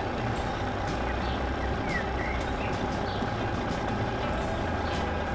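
Mini model tractor's motor running steadily, a continuous even rumble with a faint steady high tone.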